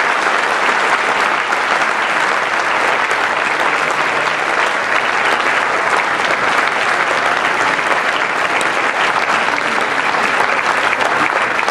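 Large conference audience applauding steadily, sustained clapping from a packed hall.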